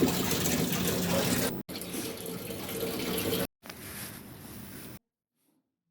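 Water rushing into the tub of an LG top-load washing machine, heard in three abruptly cut stretches, the last one quieter; it stops about five seconds in.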